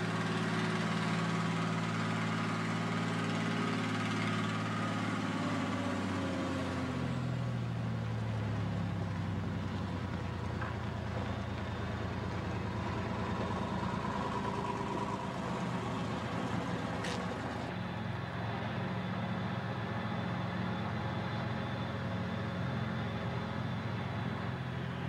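Cummins 220 diesel engine of a Lima Model 65-T shovel's four-axle truck carrier running steadily as the machine drives. Its note drops a few seconds in, then holds.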